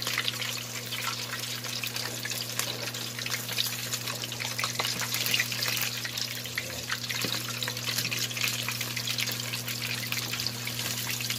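Pork knuckles deep-frying in a pan of hot oil: steady sizzling dense with small crackling pops as the skin crisps in the uncovered pan.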